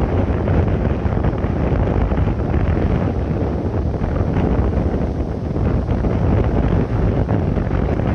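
Strong wind buffeting the microphone in a steady low rumble, with the wash of breaking surf underneath.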